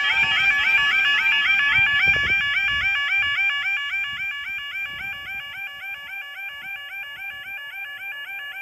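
Level crossing yelp alarm sounding: a pitched tone sweeping upward over and over, about three times a second. It weakens from about three seconds in, in keeping with this crossing's fault of the alarm cutting out. A low rumble runs under it for the first two seconds.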